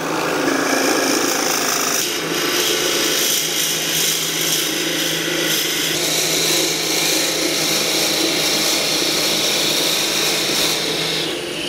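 Benchtop drill press running, its bit boring deeper into a purpleheart wood screwdriver handle: a steady motor hum under the noise of the bit cutting the wood. The sound drops away near the end.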